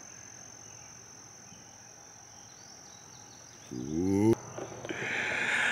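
Quiet outdoor ambience with a steady, high-pitched insect trill, typical of crickets. A brief voice sounds about four seconds in, followed by a soft hiss near the end.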